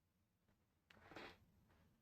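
Near silence, broken by one brief faint rustle or scrape about a second in.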